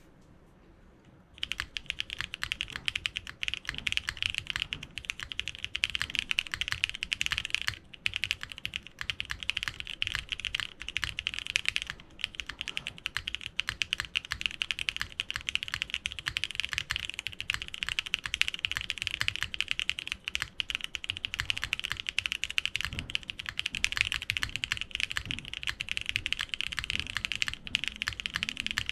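Fast continuous typing on a TGR Jane V2 ME custom mechanical keyboard with a polypropylene plate and top mount, giving a high-pitched, clacky keystroke sound. It starts about a second and a half in, with brief pauses around eight and twelve seconds in.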